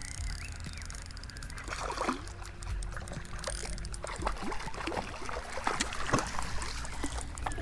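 A hooked trout splashing and thrashing at the water's surface as it is played in. It is a run of short splashes starting about two seconds in, coming faster and louder near the end.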